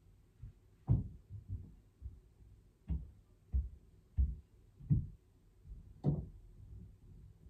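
A run of short, low thumps at irregular intervals, about eight in all, with one about six seconds in carrying the most upper sound.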